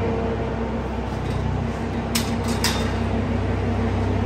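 A steady low engine or machine hum, with two short sharp knocks about two seconds in.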